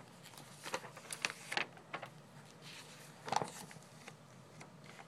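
Pages of a thick paper catalog being handled and turned: crisp paper rustling with a few short ticks, the loudest rustle about three and a half seconds in.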